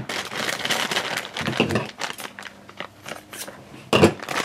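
Black plastic blind bag crinkling and crackling as hands squeeze and work it open, irregular and quieter in the middle, with a louder crackle about four seconds in.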